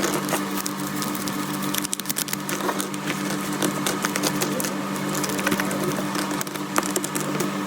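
Packaging being handled: dense, rapid crinkling and clicking over a steady low hum.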